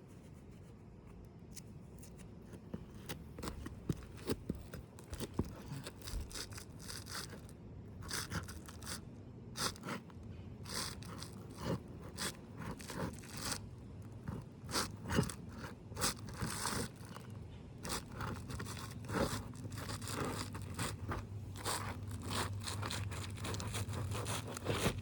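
Asphalt roof shingles being pried up from the course beneath, irregular scrapes and crunches as the sealant strips break loose and the shingles rub and crackle.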